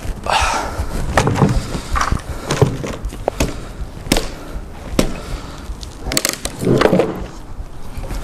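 An axe chopping into a wooden stump: a series of sharp knocks, one every half second to second, with split pieces and sticks clattering onto concrete.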